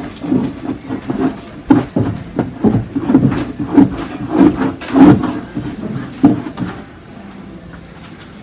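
Quick, irregular scraping and knocking strokes of a painting tool working cold wax and oil on a wooden cradled panel; they stop about three-quarters of the way through.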